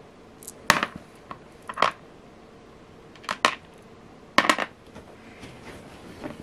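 Small metal beads clicking as they are set down one at a time on a hard work surface: a handful of sharp little clicks, some in quick pairs, about a second apart.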